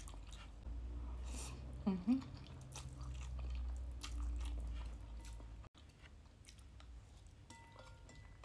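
A person chewing a mouthful of soft stir-fried vermicelli noodles close to the microphone, with small wet mouth clicks. About two seconds in comes a short hum of the voice, the loudest sound.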